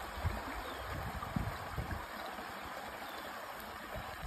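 A creek in fast, full spring flow, its water rushing steadily. A few low bumps come through near the start and again about a second and a half in.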